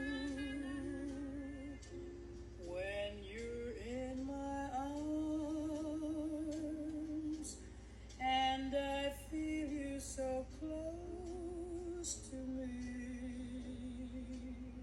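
A woman singing a slow jazz ballad, holding long wavering notes with vibrato.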